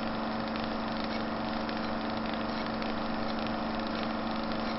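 A steady, engine-like mechanical drone that starts abruptly, with a constant hum and an even noise above it.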